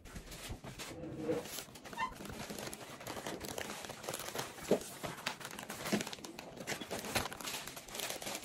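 Thin plastic cotton candy bag crinkling and rustling irregularly as it is handled and pulled at.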